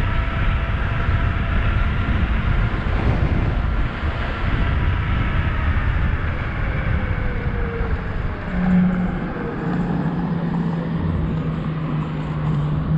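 Wind rushing over the microphone while riding an electric bike along a road, with a faint whine sliding down in pitch midway. A steady low hum comes in about two-thirds of the way through.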